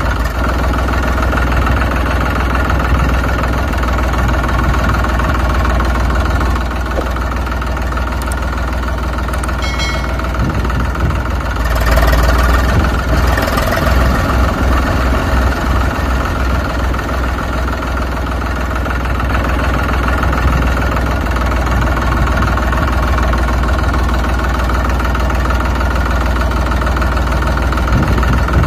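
Tractor engine idling steadily, a sound effect laid over the toy-tractor footage. It swells a little about twelve seconds in.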